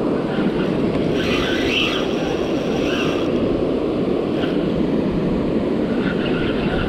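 Penn spinning reel being cranked steadily, retrieving line with a fish on, under steady wind noise on the microphone and surf.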